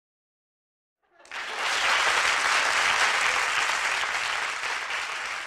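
Crowd applause that comes in suddenly after about a second of silence, holds steady, then slowly fades toward the end.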